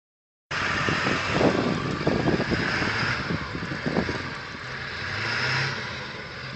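Pickup truck on an icy, snow-covered road, its engine and tyres heard against a steady noisy background. The sound cuts in abruptly about half a second in.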